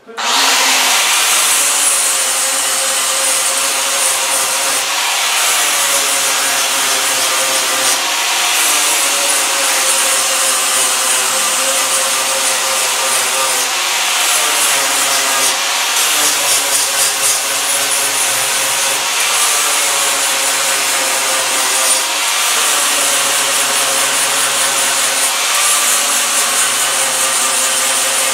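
Electric grinder starting up and grinding down welds in the sheet steel of a 1950 Ford's lower rear quarter panel. The steady grinding is loud, and its high whine dips and rises as the disc bears on the metal.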